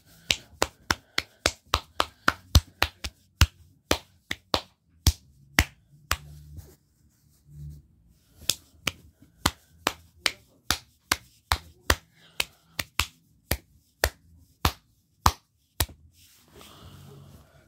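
A run of sharp, short clicks or taps, about two to three a second. They pause for a few seconds around the middle and stop near the end, where a soft rustling noise follows.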